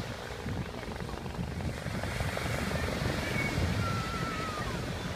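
Agusta Bell AB 412 helicopter approaching in flight, with the rapid, steady beat of its four-blade main rotor.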